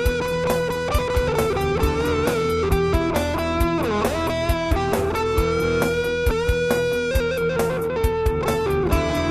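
Background music: electric guitar playing bending lead notes over bass and a steady drum beat.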